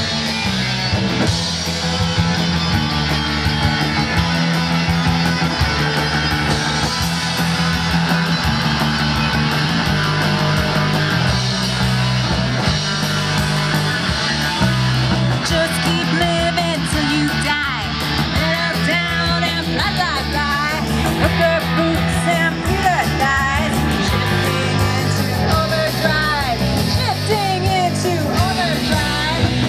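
Rock music with guitar over a steady repeating bass line; a wavering lead melody comes in about halfway through.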